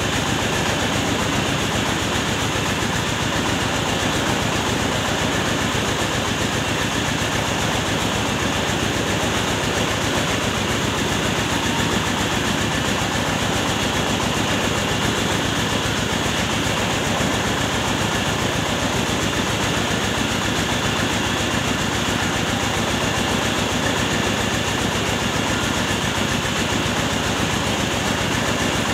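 Engine-driven mobile rice mill running steadily while grain is fed into its hopper: a continuous, even drone of engine and milling machinery.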